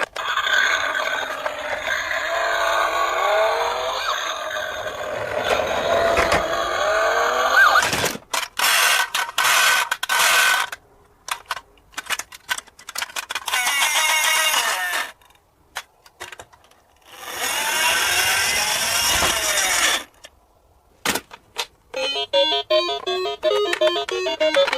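Music that changes several times. Two short near-silent gaps fall about two-thirds of the way through, and a quick repeating tune plays near the end.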